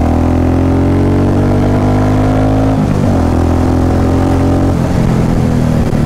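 Royal Enfield Classic 350 Reborn single-cylinder engine under way through a short, thin-mouthed 'Punjab' silencer with the catalytic converter kept, giving a bassy exhaust note. The note climbs as the bike accelerates, breaks off briefly about three seconds in and again near five seconds as it shifts up through the gears.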